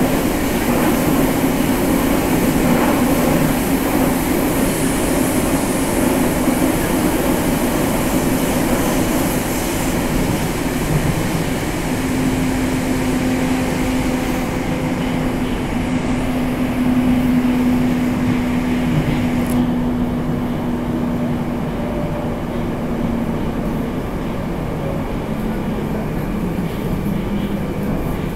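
Moscow metro 81-765/766/767 'Moskva' train heard from inside the passenger car as it runs through a tunnel: a steady rumble and rush of wheels and air. A steady hum sits under it for about ten seconds midway, and the high hiss thins out about two-thirds of the way through.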